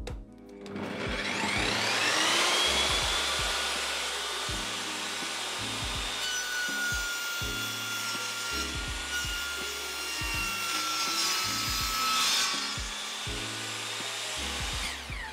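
Einhell TP-CC 10 T 2000-watt table saw starting up with its soft start, the whine rising over about two seconds, then running and cutting through a piece of multiplex plywood. Near the end the motor is switched off and begins to wind down.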